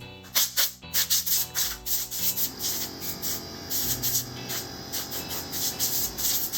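A brush scrubbing the plastic housing of a Husqvarna Automower 430X robot mower in quick strokes, about two or three a second, cleaning off built-up debris. Background music plays underneath.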